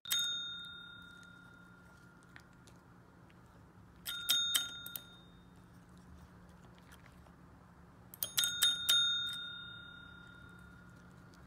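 A small metal bell struck several times, each strike ringing on and fading. It rings once at the start, then a quick run of strikes about four seconds in, and another run about eight seconds in.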